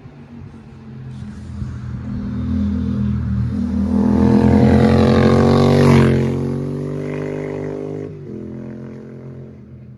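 A Yamaha MT-07's parallel-twin engine through an aftermarket Arrow exhaust line as the bike rides past: it grows louder, peaks about six seconds in with a drop in pitch as it goes by, then fades away.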